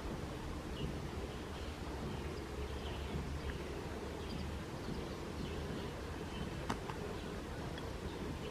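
Outdoor ambience: a steady low rumble with faint, short bird chirps every second or so, and a single sharp click near the end.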